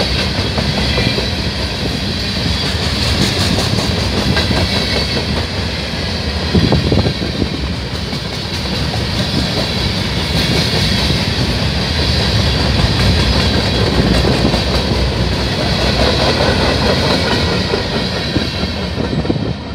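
Freight train of covered hopper cars rolling past at speed: a steady, loud rumble of steel wheels on rail with runs of rapid clicks as the wheels cross rail joints. A brief louder clank comes about six and a half seconds in.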